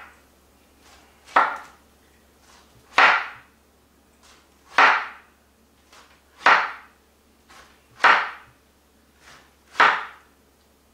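A chef's knife slicing through a peeled pineapple, each cut ending in a knock on a wooden chopping board. There are six evenly paced cuts, a little under two seconds apart.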